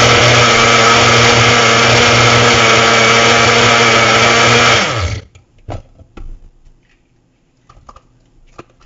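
Elite personal blender's motor running steadily under load on a fruit smoothie, then winding down and stopping about five seconds in. Afterward a few faint knocks and clicks as the cup is handled. The motor is not blending all the fruit in the cup.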